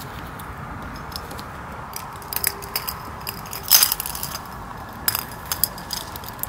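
Scattered clicks and clinks of small hard objects being handled, as someone rummages for something, with the loudest clatter about four seconds in. A steady hiss runs underneath.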